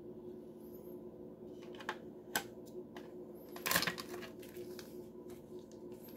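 Handling noises: a few light clicks, then a louder short clatter a little past the middle, followed by a few faint ticks, over a steady low hum.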